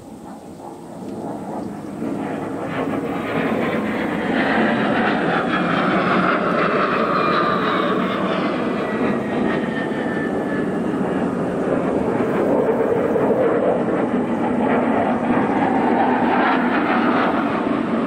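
An airplane flying over: engine noise that swells over the first few seconds and then holds loud, with a high whine that slides down in pitch through the middle.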